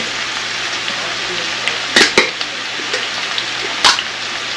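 Food sizzling in a pan on the stove, a steady hiss with a few sharp clicks about two seconds in and again near the end.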